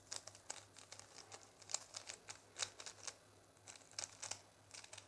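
Plastic Rubik's cube faces being turned in quick succession, a run of irregular small clicks and clacks, as a move sequence brings a corner piece down into the first layer.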